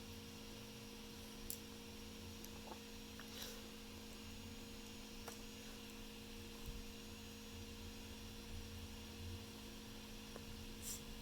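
Steady low electrical hum, with a few faint, scattered clicks and taps from small electronic parts being handled and fitted by hand.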